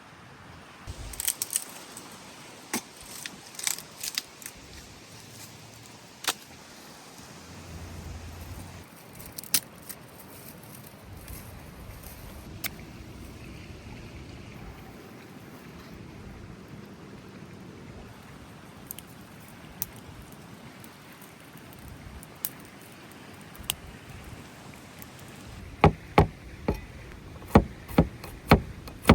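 Scattered sharp clicks and taps of objects being handled, then a run of sharp knocks, about two a second, near the end.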